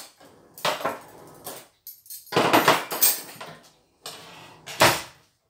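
Metal hand-mixer beaters clinking and scraping against a bowl and the counter. The sound comes in a few separate clatters, with the sharpest knock near the end.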